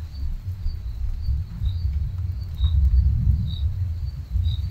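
Night insects, likely crickets, chirping in short high calls about twice a second, over a continuous low rumble that swells about three seconds in.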